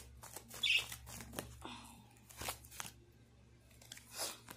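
Tarot cards being shuffled and drawn: a string of short paper snaps and brief rustles, over a faint steady low hum.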